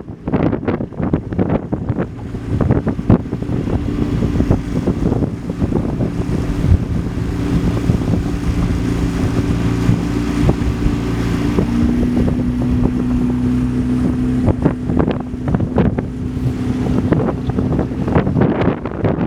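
Motor of a small launch running steadily under way, its note dropping slightly about two-thirds of the way through. Heavy wind buffets the microphone throughout, loudest near the start and end.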